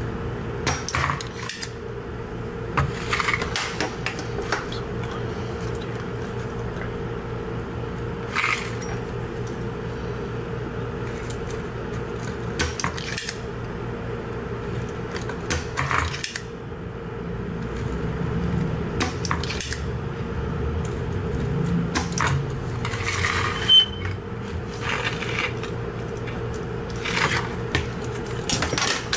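Desoldering work on a circuit board: scattered sharp clicks and metallic clinks from a spring-loaded solder sucker and hand tools against the board, about a dozen spread out, the sharpest a little over three-quarters of the way in, over a steady low hum.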